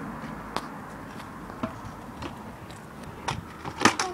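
Stunt scooter on concrete paving slabs: a few scattered clicks and knocks from the wheels and deck, then the loudest clatter a little before the end as the scooter comes down from a trick.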